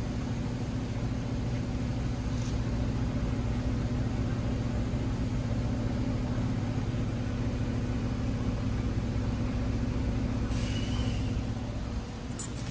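A 2014 Chevrolet Impala's 3.6-litre V6 idling steadily, heard at its exhaust tailpipes, a little quieter near the end.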